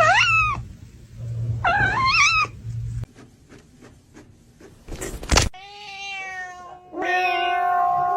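Cat meowing: two short meows that rise and fall in pitch, then after a sharp knock, long drawn-out yowls held for several seconds.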